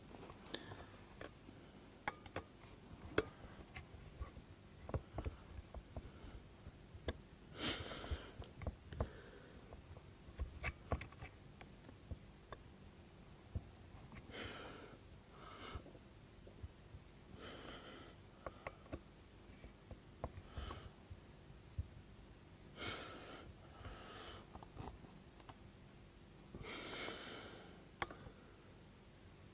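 A person breathing and sniffing close by, eight or so breaths spread through the stretch, with scattered light clicks and taps of a screwdriver working at a string trimmer's plastic engine cover.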